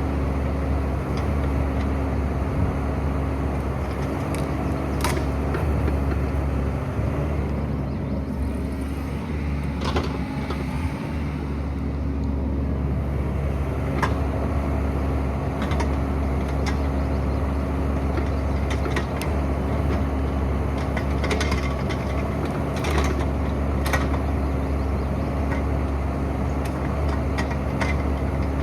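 Excavator's diesel engine running steadily under load, with occasional sharp knocks and clanks from the machine working.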